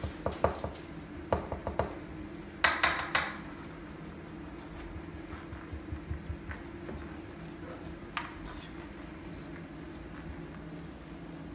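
Light clinking and clattering of small hard objects, in short runs during the first three seconds, the loudest just under three seconds in, then a few single clicks, over a steady low room hum.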